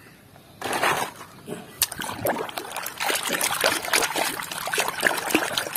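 Hands sloshing and splashing a toy around in a tub of muddy water, starting about half a second in, with irregular small splashes and drips.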